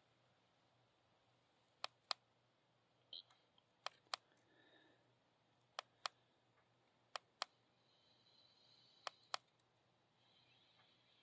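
Five pairs of sharp plastic clicks, each pair a button pressed and released, one pair about every one and a half to two seconds: a handheld battery tester's buttons being pressed to run a battery test.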